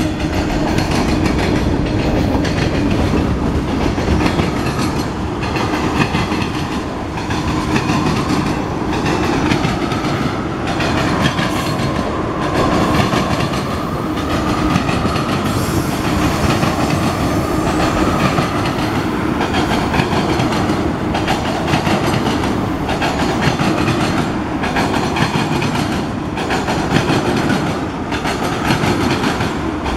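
Cars of a Norfolk Southern mixed freight train, mostly tank cars, rolling past close by: a steady rumble with the clickety-clack of steel wheels on the rails.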